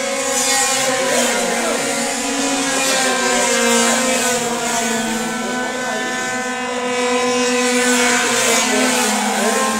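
Several racing scooter engines on the track at once, each rising and falling in pitch as the riders open and close the throttle.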